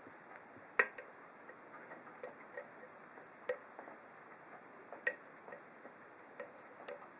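An ASSA SCD 7-pin oval lock cylinder being picked with a hook pick and a wire tension wrench: about a dozen light metal clicks at irregular intervals as the pins are worked.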